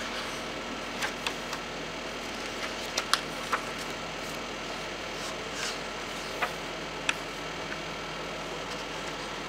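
Paper pages of a hardcover diary being handled and turned, giving scattered light clicks and brief rustles, the sharpest about three seconds in. Under them runs a steady low background hum.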